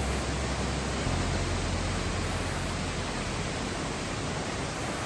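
Waterfall pouring into a rocky pool: a steady rush of falling water.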